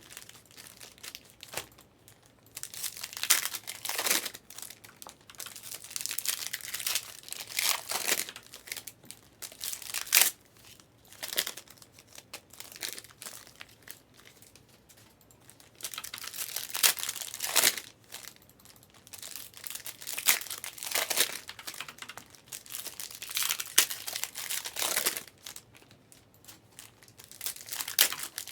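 Plastic trading-card pack wrappers and box wrap being torn open and crinkled by hand, in repeated bursts of crackling with short quiet gaps between them.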